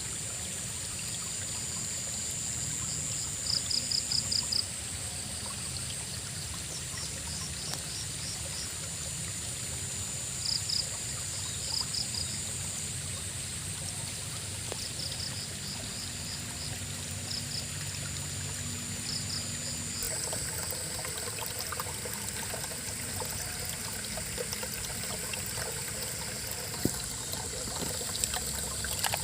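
River water flowing steadily, with frogs calling in short rapid trills of five or six pulses every few seconds. A steady high-pitched drone runs underneath, and the water sound changes in character about twenty seconds in.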